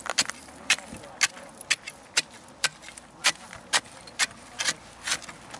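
Steel ice chisel chopping into thick lake ice, a sharp crunching strike about twice a second as the ice shatters into chips. It is digging out a shallow bowl in the ice rather than a hole through it.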